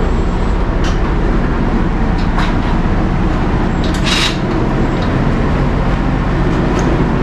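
Steady low motor drone, with a few short clinks over it, the loudest about four seconds in.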